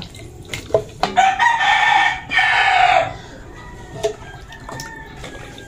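A rooster crowing once, a long call that starts about a second in and lasts about two seconds. A few light knocks of a ladle against a metal cooking pot.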